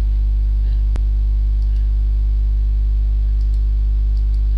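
Loud, steady electrical mains hum on the recording, a low buzz that does not change, with a single sharp click about a second in.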